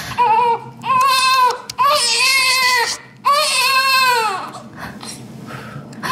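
Baby crying: a run of about four high-pitched wails, each up to a second and a half long, growing quieter near the end.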